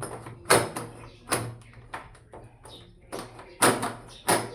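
Door knob and lockset being worked on the door: a run of sharp, irregular metal-and-wood knocks and clacks, about six of them, each with a short ring.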